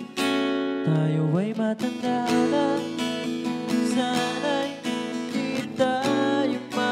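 Acoustic guitar strummed in a steady rhythm. From about a second in, a man's voice carries a wavering, wordless melody over the chords.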